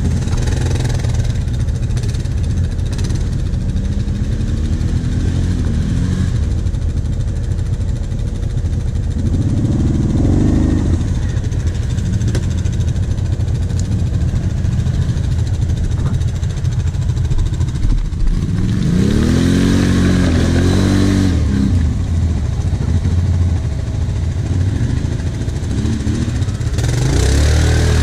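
ATV engine running close by, with a steady low rumble, revving up and down twice as the quad rides a rutted dirt trail: once about a third of the way in and again more strongly about two thirds of the way through.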